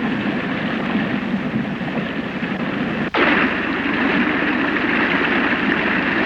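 Steady rushing roar of a waterfall, with a momentary break about three seconds in, after which it comes back slightly louder.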